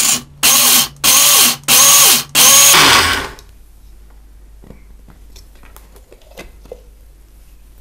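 Small mixer grinder (mixie) run in short pulses, about five bursts of roughly half a second, each winding down with a falling whine, grinding roasted dry coconut, dal and red chillies; pulsing rather than running continuously keeps the powder coarse. The motor stops about three seconds in, and a few faint clicks follow as the jar is handled.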